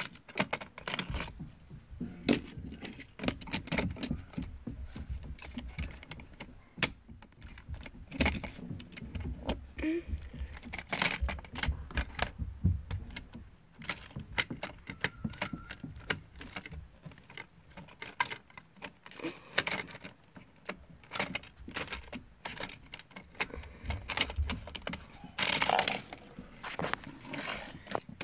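Hard plastic parts of a Hot Wheels Downtown Power Plant Blast playset clicking, knocking and rattling as they are handled and fitted together, in irregular clusters, loudest a little before the end.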